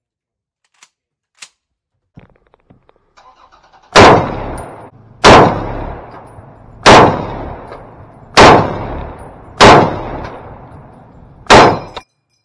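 Six rifle shots from an M1 Garand firing .30-06 M2 ball ammunition, spaced about one and a half seconds apart, each followed by a decaying echo. A few faint clicks and rattles of the rifle being handled come before the first shot.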